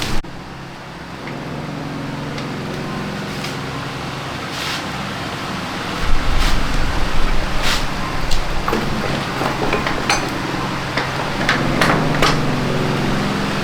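Hand tools clinking and knocking on metal scooter parts, short sharp clicks scattered irregularly, over a steady low hum that grows louder about six seconds in.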